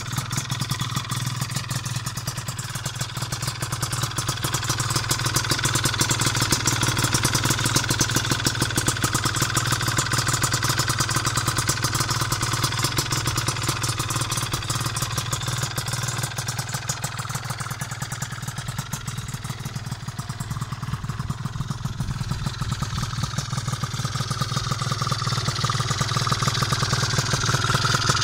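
Piaggio Zip SP scooter's two-stroke engine, with a Malossi 172 cylinder kit, PM59 expansion-chamber exhaust and 35 mm Keihin PWK carburettor, running at idle while it warms up after a cold start. Its speed swells and sags a little.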